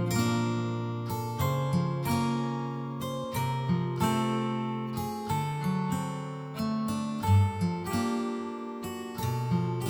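Background music: a gently plucked acoustic guitar playing a slow melody, each note ringing on.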